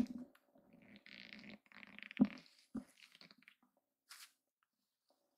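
Faint rustling of a fleece blanket as kittens stir and stretch in their bed, with two dull soft thumps a little over two seconds in, about half a second apart.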